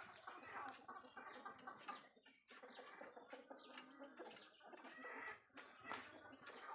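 Chickens clucking faintly, with scattered small clicks and pecking sounds.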